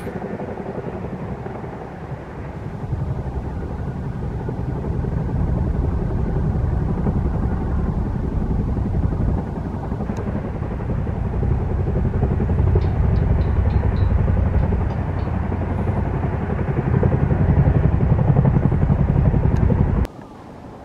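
Distant jet engine rumble from a climbing Boeing 777-300 on departure: a low, steady roar that grows louder, then cuts off near the end.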